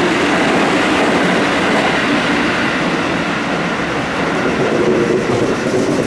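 Red Meitetsu electric train moving along the platform track close by: a steady, loud rumble of wheels on rail with motor noise.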